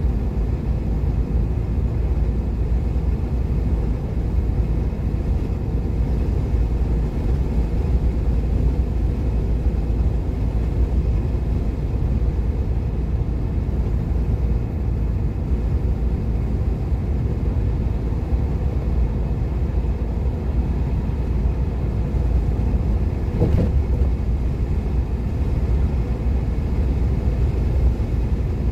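Car driving at speed on a motorway: steady low road and engine rumble, with one brief knock late on.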